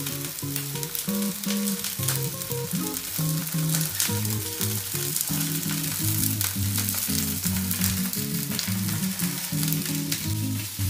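Chicken drumsticks searing in hot oil in a frying pan, sizzling steadily with light crackling while they are turned with metal tongs. Background music plays underneath.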